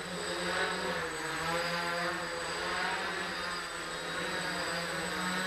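RotorBits quadcopter's electric motors and propellers buzzing in flight, with a steady drone whose pitch wavers up and down as the motor speeds change.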